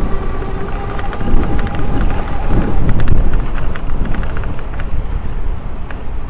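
Wind rumbling on the microphone of a camera carried on a moving bicycle, with road traffic going by and scattered small clicks and rattles.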